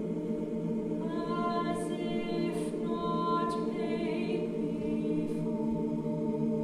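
A woman's voice singing long held notes from about a second in until about four seconds in, over a steady, dense electronic drone that runs throughout, as in a piece for voice and live electronics. A few short hisses sound on top.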